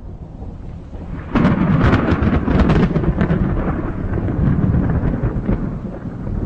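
Close thunder: a low rumble builds, then breaks into a loud, sharp crack about a second in, followed by a crackling, rolling rumble that carries on.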